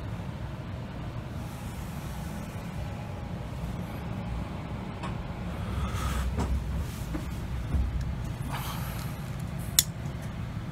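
Steady low rumble inside a passenger train carriage. Near the end, a cigarette lighter clicks once, sharply.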